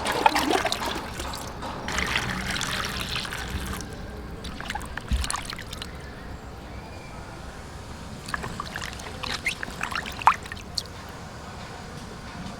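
Water trickling and sloshing, loudest over the first few seconds, then scattered light clicks and knocks.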